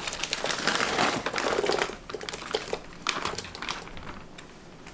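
Plastic bag of gnocchi crinkling as it is shaken out over a pot, mostly in the first two seconds, with another short rustle about three seconds in.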